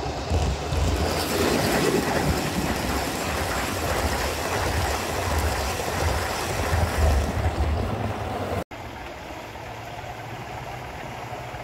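Garden-scale model train, a diesel-outline locomotive and coaches, running close past with a steady rumble of wheels on the track. About two-thirds of the way through the sound cuts off abruptly and gives way to a quieter, steady running sound from further off.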